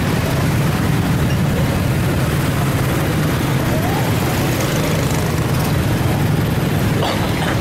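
Steady low rumble of road traffic, vehicle engines running without any horn sounding.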